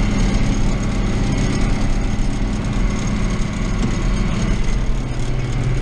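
John Deere 2940 tractor's diesel engine running steadily under light field load, its note shifting slightly about five seconds in.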